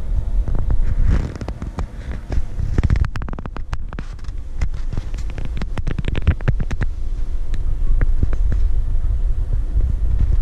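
Steady low rumble with a run of sharp clicks and taps from about one to seven seconds in, like handling noise on a moving phone microphone near plastic tubs.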